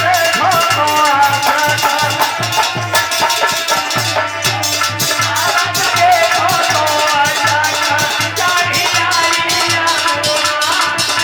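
Indian devotional bhajan music in an instrumental passage: a fast, steady beat of drums and a shaker under a wavering melody line.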